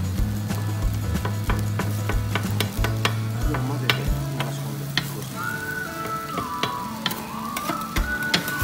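Two metal spatulas chopping and scraping shredded cabbage on a hot steel teppan griddle: rapid clicks and scrapes over a steady sizzle, as the cabbage is shaped into a ring for monjayaki. About halfway through, a high wavering tone comes in alongside.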